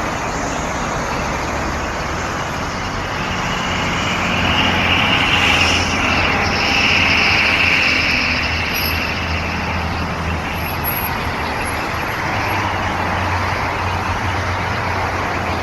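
Steady road traffic noise, swelling as a vehicle passes about four to eight seconds in.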